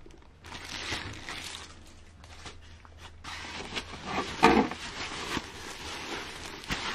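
Foam packing sheet and plastic bags rustling and crinkling as hands dig into a cardboard box and lift out a bagged case panel. The rustling is uneven, with a louder burst about four and a half seconds in.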